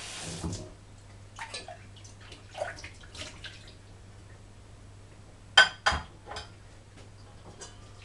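A kitchen tap running briefly, shut off about half a second in, then scattered clinks and knocks of a stainless steel pot and colander being handled at the sink, with two sharp metal clanks in quick succession about two-thirds of the way through.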